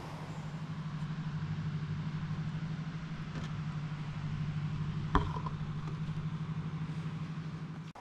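An engine running steadily at a low, even idle, with one sharp click about five seconds in.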